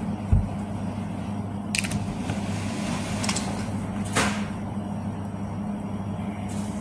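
Steady low electrical hum of a shop interior, with a dull thump just after the start, likely the phone being handled, and three short hissing swishes spread through the middle.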